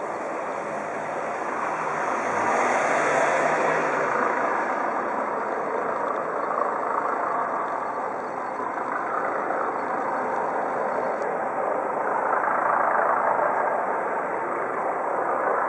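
Eurocopter EC 135 police helicopter flying at low altitude, a steady rotor and turbine noise. It swells about three seconds in and again near the end.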